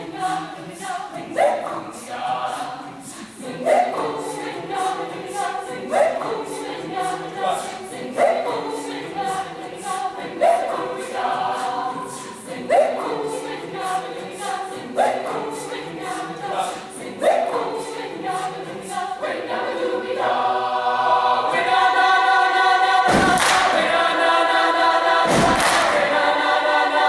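High school choir singing over a steady beat of sharp hits about twice a second. About 20 seconds in, it swells into a loud held chord, with a few heavy hits near the end before it cuts off.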